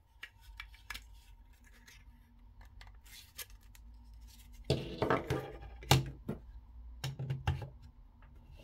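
Plastic clicks and rustling from a hair clipper's charging cord and stand being handled, then clusters of louder knocks and clatter from about five seconds in as the plastic stand and clipper are set down on a wooden desk; one knock just before six seconds is the loudest.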